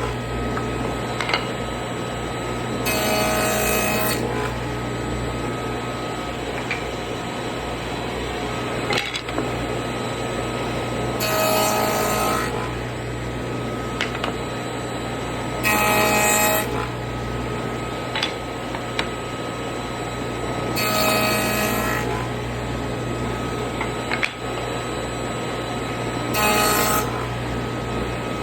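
Table saw with a dado stack running steadily while tenons are cut on wooden door rails. Five passes, each a loud, pitched cut lasting about a second, with the saw's steady hum and a few light clicks between them.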